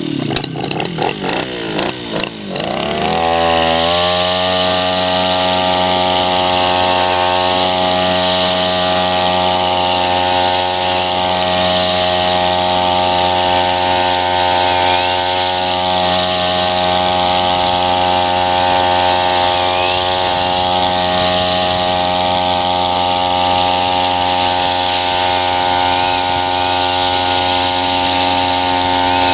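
Tabata 32 cc two-stroke backpack brush cutter revving unevenly for about three seconds, then running steadily at full throttle as its eight-line nylon trimmer head cuts tall, thick grass.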